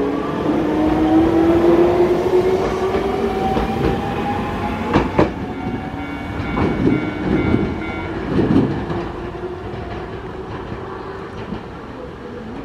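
Nankai 2000 series electric train accelerating away from a station: its traction motors whine, climbing steadily in pitch, then the wheels clatter over rail joints and the sound fades as the train recedes.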